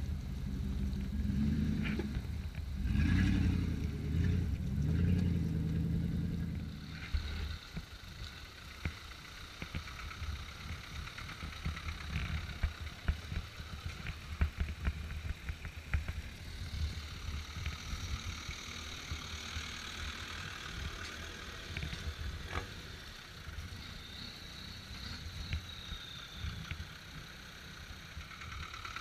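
Engine of an off-road 4x4 revving and labouring as it crawls close past over a muddy track, its pitch rising and falling, loudest in the first seven seconds or so. After that, quieter engines of other 4x4s running at low speed, with many short clicks and crackles.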